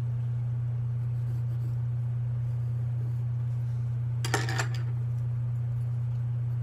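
Watercolour pencil clattering against the watercolour paint palette as one pencil is set down and another picked up: two light clicks in quick succession about four seconds in. A steady low hum runs underneath.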